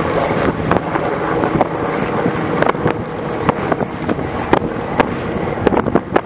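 Twin-turbine EC225LP Super Puma helicopter flying overhead, its rotor and turbine noise steady and loud, with wind buffeting the microphone in sharp irregular knocks.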